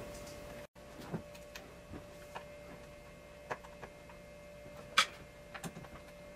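Scattered small clicks and taps of hands working the plastic gear covers off an RC buggy's chassis, the sharpest click about five seconds in, over a faint steady hum.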